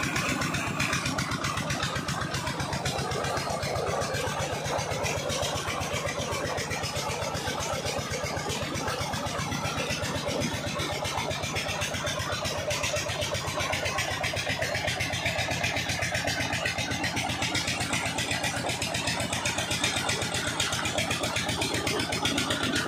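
Old stationary diesel engine running steadily with an even, rapid beat, driving a belt-driven tube-well pump. Water gushes from the pump's discharge pipe into a channel.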